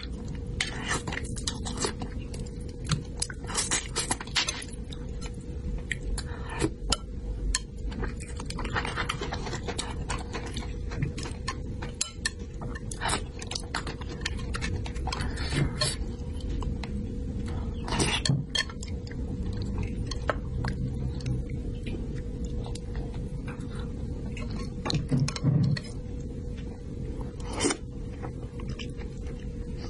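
Close-up eating sounds: chewing, wet lip smacks and slurps of braised fish and broth, with scattered sharp clicks from chopsticks on the bowl, over a steady low hum.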